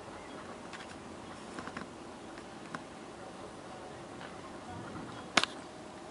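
Footsteps and light knocks as someone walks into a boat's cabin, over a faint steady background noise, with one sharp double click or knock near the end.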